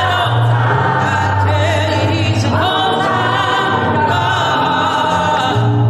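Church choir of mixed men's and women's voices singing a gospel song in harmony, holding long chords that change about two and a half seconds in.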